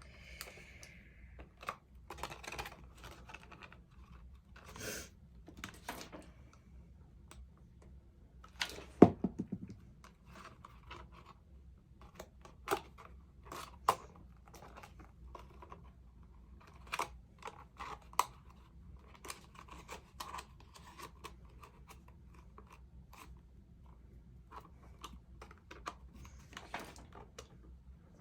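Hands handling and gluing pieces of a cut craft container: scattered small clicks, taps and rustles, with one louder knock about nine seconds in.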